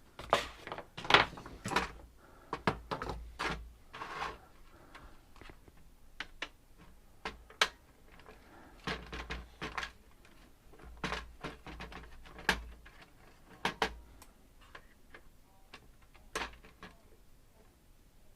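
Irregular clicks, taps and knocks as the metal and plastic parts of a docking station are worked apart by hand with hand tools. They come in small clusters every second or two and grow sparser near the end.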